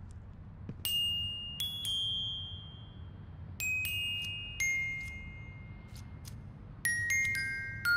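Patek Philippe Grandmaster Chime Ref. 5175 wristwatch striking its gongs: about nine high, bell-like notes in three groups, each left ringing and fading. The last group steps downward in pitch.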